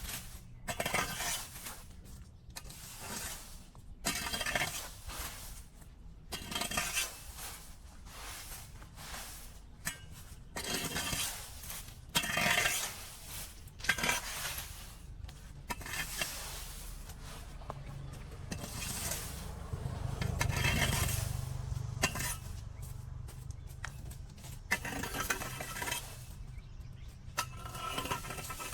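Irregular clinks, knocks and scrapes of a hand tool working through debris at a blocked drain, over a steady low rush that swells briefly about two-thirds of the way in.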